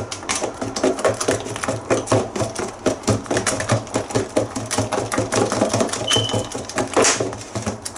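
Wire hand whisk beating a runny batter in a plastic bowl, clicking against the sides in a quick, even rhythm of several strikes a second.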